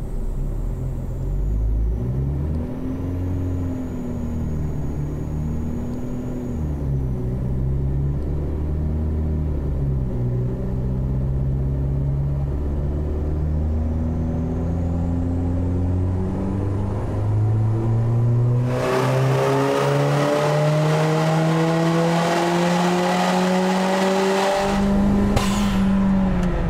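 VW 1.8T turbocharged four-cylinder running on a chassis dyno. Its revs rise and dip at first, then climb steadily in a long pull. About 19 seconds in, a loud rushing hiss cuts in over the engine: the 90-degree boost hose at the compressor outlet blowing off, which the tuner puts down to a broken clamp. Near the end the revs fall away.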